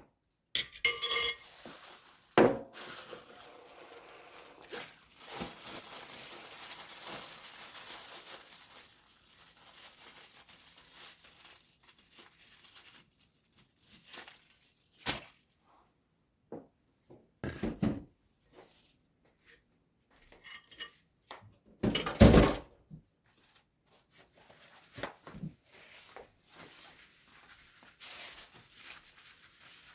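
Kitchen handling sounds: dishes and containers clinking and knocking, with plastic packaging crinkling and tearing as soup is packed for the freezer. A long rustle fades out over several seconds, and a few sharper knocks stand out later on.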